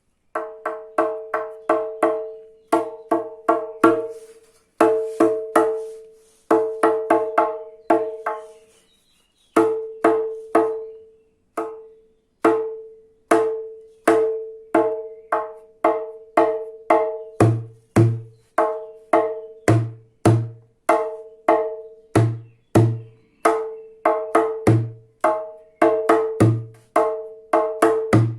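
Small djembe hand drum played in a fast repeating pattern mixing ringing, higher tak strokes with deep doum bass strokes. The bass strokes grow stronger from about halfway through.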